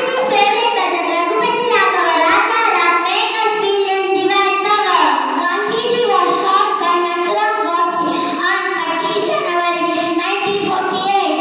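Young girls singing a song together into microphones, amplified over a sound system.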